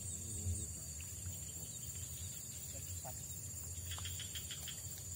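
Steady high-pitched trill of an insect chorus, with a low rumble underneath and a quick cluster of short high chirps about four seconds in.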